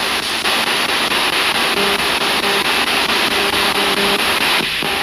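Spirit box sweeping through radio frequencies, played through a JBL Bluetooth speaker: a loud, steady rush of radio static with faint tones coming and going.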